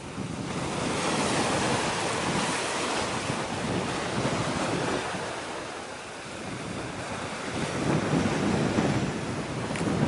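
Wind gusting across the microphone over the steady wash of sea waves, the gusts swelling and easing.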